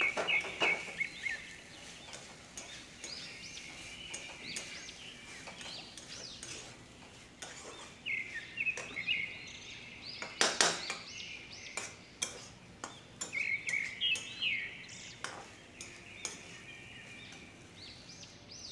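Birds chirping in repeated short bursts while a plastic spatula stirs vegetables in a kadhai, giving scattered clicks and clacks against the pan, the loudest clatter about ten seconds in.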